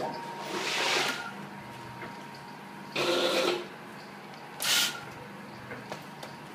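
Automatic vertical pouch packing machine running: a steady motor hum with a thin steady tone, broken by three sharp bursts of hiss and clatter a second or two apart as the machine cycles.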